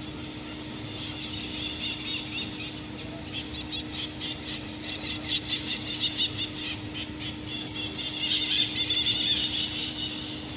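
A troop of common marmosets calling: a rapid chatter of short, high-pitched squeaky chirps that starts about a second in and grows denser toward the end, with a few sharper, higher whistled notes mixed in.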